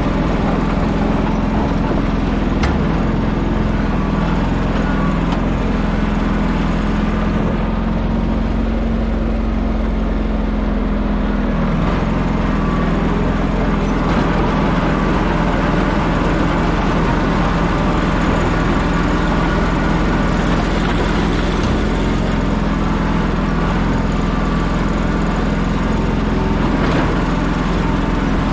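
A vehicle engine running steadily under a constant rushing noise. Its pitch shifts slightly and then drops about twelve seconds in.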